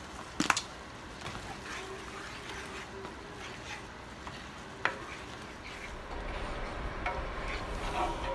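Wooden spoon stirring a simmering crawfish cream sauce in a cast iron skillet, with a faint sizzle. Two sharp knocks, the louder about half a second in and another near the middle.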